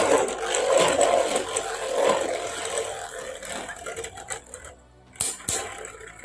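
Two Beyblade Burst spinning tops whirring and grinding against each other in a plastic stadium. The sound is loudest at first and slowly dies away as they lose spin, with a few sharp clacks about five seconds in.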